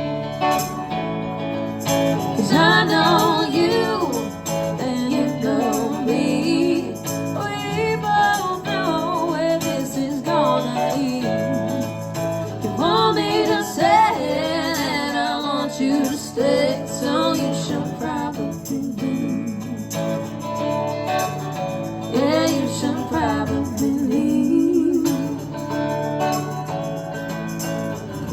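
A band playing with guitar, held bass notes and a wavering, bending lead melody recurring every few seconds. There are no sung words: this is the song's intro.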